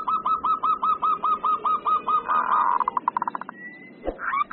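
Zebra dove (perkutut) giving its agitated 'emosi' call: a fast run of short, evenly spaced cooing notes, about six or seven a second, that breaks into a brief buzzy trill and quick clicks past the middle. A short pause with a soft knock follows, and a new run of notes starts near the end.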